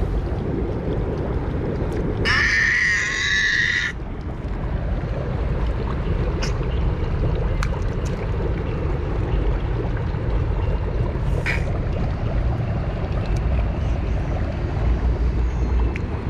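Splash-pad water jets splashing onto wet pavement, a steady low rush. About two seconds in, a high wavering squeal lasts under two seconds, and a few faint clicks follow.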